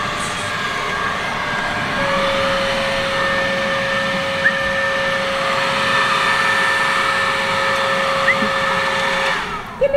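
Battery-powered cordless leaf blower running steadily with a fan whine. It steps up in speed about two seconds in, then is switched off near the end and winds down with a falling whine.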